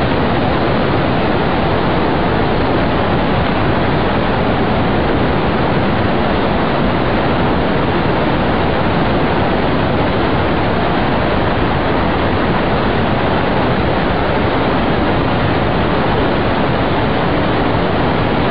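Steady, loud rushing noise with no distinct events or rhythm, cutting off suddenly at the end.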